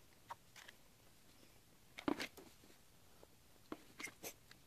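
Daiso titanium fork clicking and scraping against a plate as it cuts into a chocolate-glazed doughnut. A few light clicks, a louder cluster about two seconds in, and a few more near the end.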